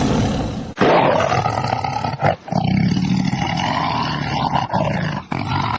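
Lion roaring: several long, rough roars broken by short pauses about one and two and a half seconds in.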